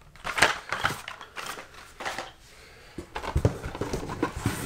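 Hot Wheels blister packs and their cardboard case being handled: scattered clicks, taps and rustles of plastic and card, busier in the second half.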